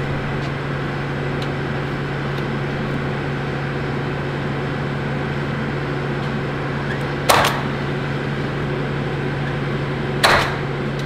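A cordless drill briefly driving screws through the metal ceiling panel twice, about three seconds apart, each a short, sharp burst, over a steady low hum.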